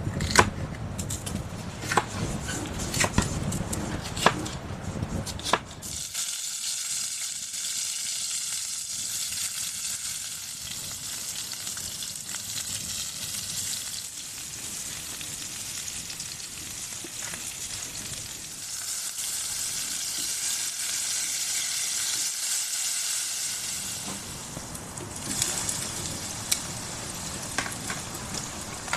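Food sizzling as it fries in a pan, a steady hiss, with clinks and knocks of utensils during the first six seconds or so.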